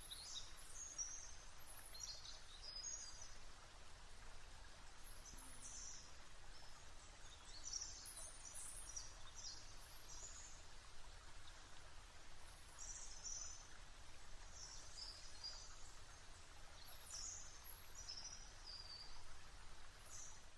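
Faint bird chirps, short high calls scattered every second or so over a steady hiss.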